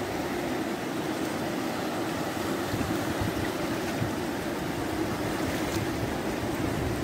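Muddy floodwater from an overflowing stream rushing over flooded ground: a steady, unbroken rush of water.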